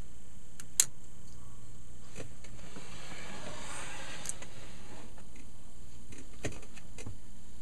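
Ampex 601 tape transport being handled and turned around: a sharp click about a second in, a couple of seconds of scraping and rubbing as the heavy chassis is moved, then two knocks near the end, all over a steady low hum.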